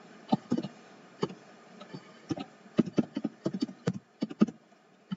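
Computer keyboard being typed on: about twenty sharp keystroke clicks at an uneven pace, some coming in quick runs.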